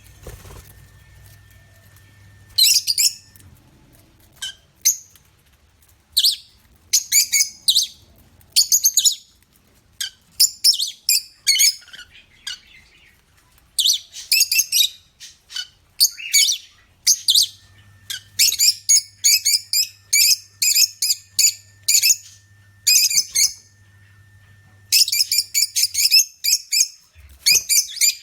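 Small birds chirping: short clusters of quick, high-pitched chirps, repeated irregularly.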